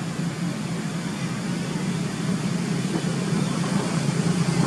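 A steady low drone of outdoor background noise, even in level throughout.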